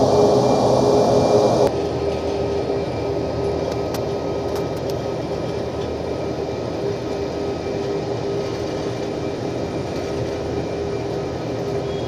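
Boeing 737 jet engines at takeoff power as the airliner rolls down the runway: a steady rush of noise with a held whine. The level drops suddenly about two seconds in.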